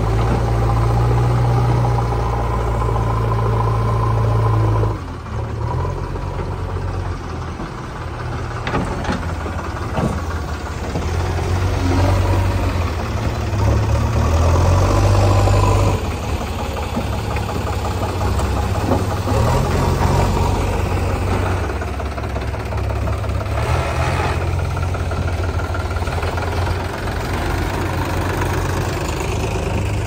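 JCB 3DX backhoe loader's diesel engine running under load as it works its loader bucket, the engine note rising and falling several times, with a few short knocks partway through.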